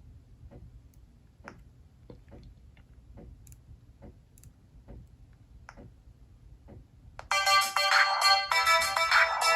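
A few faint, irregular clicks, then about seven seconds in a bright ringtone melody starts playing loudly from the Sony Ericsson W950i's speaker.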